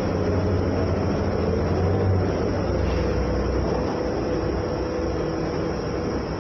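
Cabin noise inside a moving city transit bus: a steady low engine drone and road rumble, with a faint whine above it.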